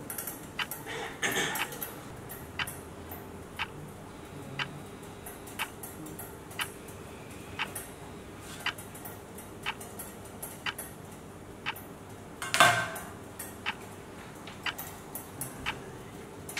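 Clock ticking about once a second, with a brief louder rustle of paper pages about two-thirds of the way through.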